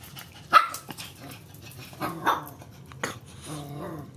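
Dog barking a few times, sharply and loudest about half a second in, then whining with a wavering pitch near the end.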